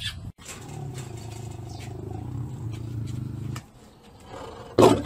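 Male lion growling: a low, steady rumble for about three seconds, then a sudden, much louder outburst near the end.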